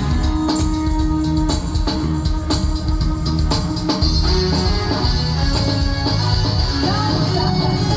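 Band music with bass, sustained pitched notes and drums keeping a steady beat; a wavering melody line comes in near the end.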